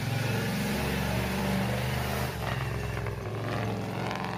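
Engine of a monster-truck school bus running steadily at low revs.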